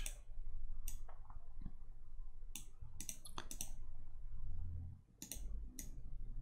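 Computer mouse clicking: scattered single clicks, with a quick run of several clicks about three seconds in, over a faint low hum.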